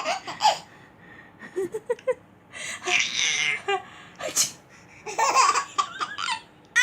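A baby laughing in short giggly bursts at a woman's pretend sneezes, with noisy sneeze-like bursts around the middle.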